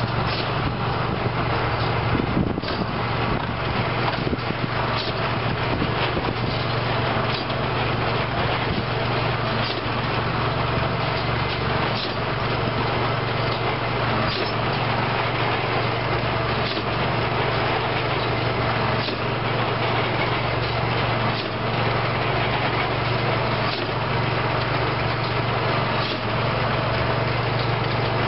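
Large square hay baler at work behind a tractor: a steady engine drone with a sharp, regular knock about every two and a half seconds from the baler's mechanism.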